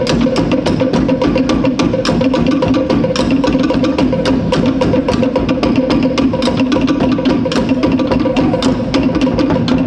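Tahitian drumming: a fast, unbroken rhythm of sharp wooden strikes, typical of to'ere slit-log drums, over a continuous low drum rumble.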